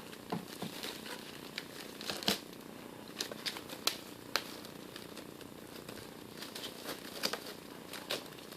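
Plastic cling wrap crinkling and crackling as it is stretched tight and wound around a portable typewriter, in scattered irregular sharp crackles.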